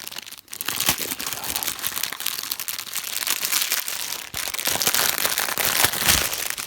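Plastic packaging of a craft kit crinkling and rustling as it is handled, a continuous crackly rustle with a short break about half a second in.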